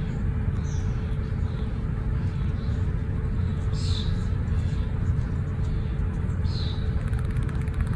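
Steady low rumbling background noise with a faint constant hum. Three short high chirps come about a second in, at four seconds and near six and a half seconds.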